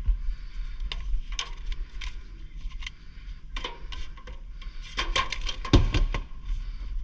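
Scattered clicks and light clattering knocks, with a quick run of them about five to six seconds in, over a steady low rumble.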